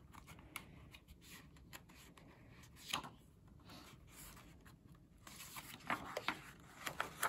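Paper page of a picture book being handled and turned: soft rustles, a sharper crinkle about three seconds in, and a quick cluster of rustles near the end as the page flips over.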